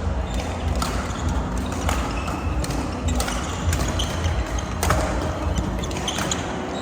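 Badminton rally: several sharp racket hits on the shuttlecock at irregular intervals, the loudest about five seconds in, with short high squeaks from shoes on the court, over a steady low rumble.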